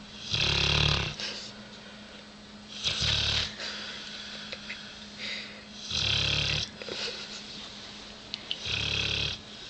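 Sleeping dog snoring: four loud snores about every three seconds, each a low rumble with a raspy upper edge, with quieter breathing in between.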